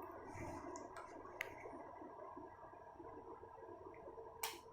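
A few faint clicks from a plastic oil dispenser bottle and its push-open lid being handled, over quiet room tone, with one louder click near the end.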